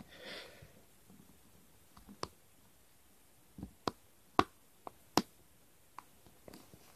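Scattered sharp little clicks, about eight at irregular intervals, as a suction cup on the glass front of an Astell & Kern AK100II digital audio player is gripped and pulled with slowly increasing force to lift the screen. A soft rustle of handling at the start.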